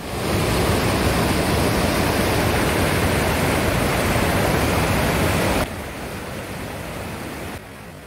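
Floodwater rushing hard below a reservoir spillway, a loud, even rushing noise. It drops suddenly in level about five and a half seconds in, and again near the end.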